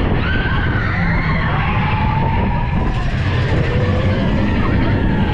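Big Thunder Mountain Railroad mine-train roller coaster running at speed on its track, heard from the rear car: a loud steady rumble with long high squeals that rise and fall as the wheels take the curves.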